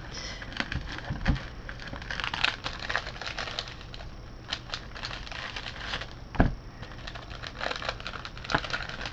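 Clear plastic sticker sleeve being handled, with light crinkling and small irregular clicks and taps. There is one louder knock about six seconds in.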